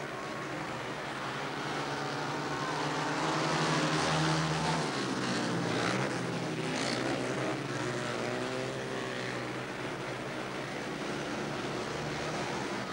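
Speedway bikes' 500cc single-cylinder methanol-burning engines racing, the note rising and falling as the riders go into and out of the bends. Loudest about four seconds in.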